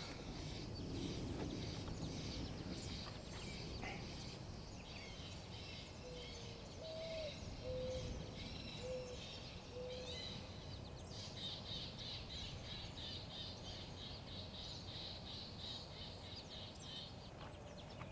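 Birds chirping and calling, with a few short lower whistled notes around the middle and a fast run of high chirps through the second half, over a steady low rumbling background noise.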